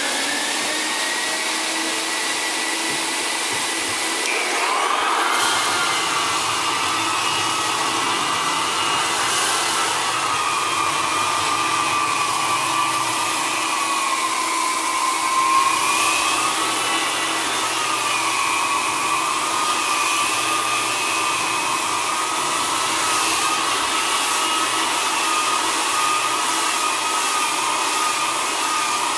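Dust-containment vacuum running with a steady whine, joined about four seconds in by a hardwood floor edger starting up and sanding along the floor edge, its motor whine wavering in pitch as it works.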